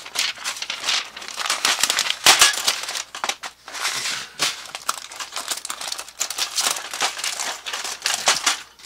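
Packing tape and a paper protective strip being peeled off a new laser printer's plastic paper tray and handled, a dense irregular run of crinkling and crackling.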